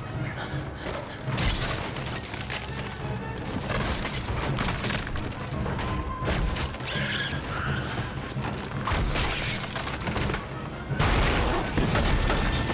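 Film soundtrack: tense orchestral music under repeated heavy booming blows on a barred wooden door, with wood splintering as it is battered.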